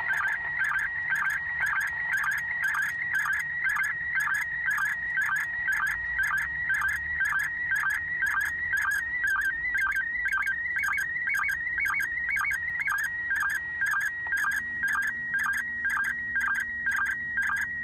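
Slow-scan television (SSTV) image signal from the International Space Station, received on a Yaesu FT-8800 2-metre FM radio and played through its speaker in the car. It is a warbling tone that keeps shifting in pitch, broken about twice a second by a short lower beep as each image line is sent.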